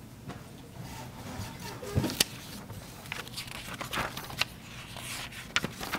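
Scattered knocks, clicks and rustling of papers being handled at a wooden lectern, over a low room hum; the sharpest knocks come about two seconds in and again near the end.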